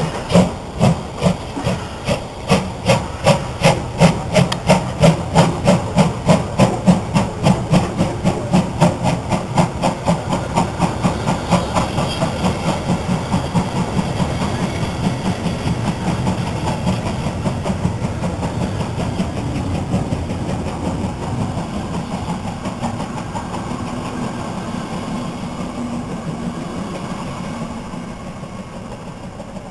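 Steam locomotive pulling away with a train of passenger coaches: sharp exhaust chuffs at about two a second quicken as it gathers speed and merge into a steady rumble. The coaches then roll past and the sound slowly fades near the end.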